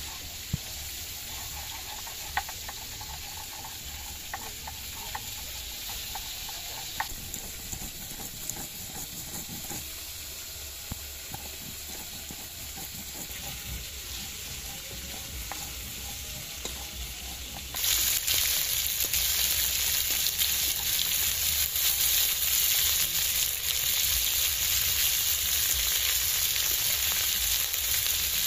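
Pieces of mrigal carp frying in hot oil in an iron wok: a steady sizzle that jumps much louder about two-thirds of the way through. Before that the sizzle is softer, with scattered light clicks from a hand stone grinding spices on a stone slab.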